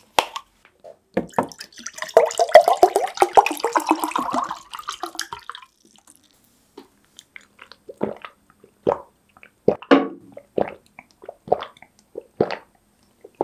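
Water poured from a plastic bottle into a glass mug, the pitch of the pour rising as the glass fills. It is followed by a run of separate swallowing gulps as the water is drunk.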